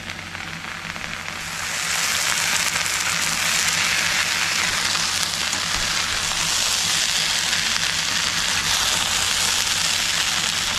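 Okra and onion stir-fry sizzling in a hot aluminium pan, the sizzle growing louder over the first two seconds as the lid is lifted off, then holding steady while it is stirred and tossed with a spatula.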